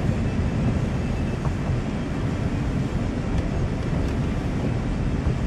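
Steady low rumble of a car driving on rain-soaked roads, heard from inside the cabin, with a few faint ticks.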